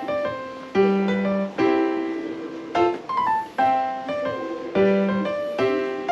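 Background piano music: a gentle melody of single notes and chords, each struck and left to fade before the next.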